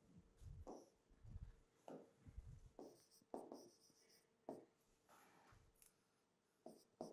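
Felt-tip marker writing on a whiteboard: a faint series of short strokes and squeaks, about a dozen, with brief pauses between them.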